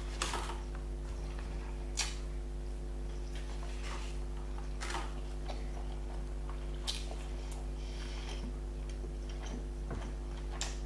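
Eating sounds: sharp mouth clicks and smacks of chewing, a few seconds apart, over a steady low electrical hum.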